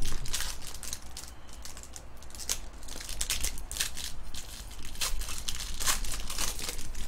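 Foil wrapper of a trading card pack being torn open and crinkled by hand, in irregular short crackles.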